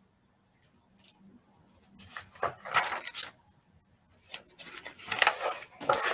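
Close rustling and rubbing noises in irregular bursts, thickest in the second half: handling noise near the microphone.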